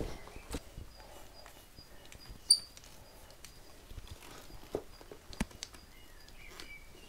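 Braided power-flush hoses and brass hose fittings being handled and coupled: scattered small clicks and knocks, with one sharp metallic clink about two and a half seconds in.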